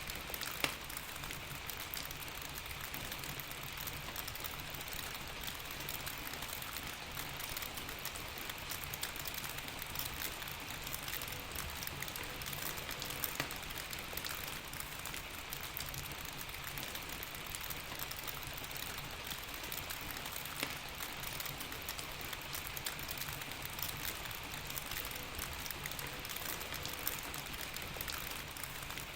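Steady rain hissing evenly, mixed with a crackling fireplace that adds scattered sharp pops throughout, with a low steady rumble underneath.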